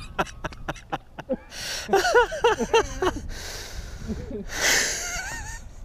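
Men laughing, in quick breathy bursts with short pitched vocal sounds around the middle and near the end.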